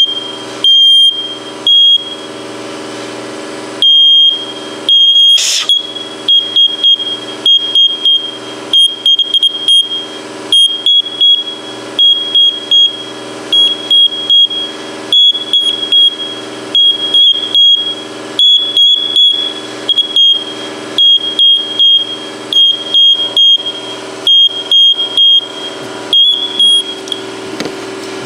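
A faulty First Alert smoke detector's piezo horn, powered by a 9-volt battery, sounds a shrill beep over and over. The first beeps are long, then come shorter ones about twice a second, stopping shortly before the end. The beeping is the continual fault being hunted down, with nothing visibly wrong inside, over a steady low hum.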